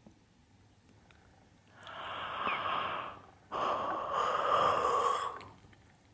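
A person's breath close to the microphone: two long, breathy open-mouthed breaths of about a second and a half to two seconds each, the second louder and starting abruptly after a short pause.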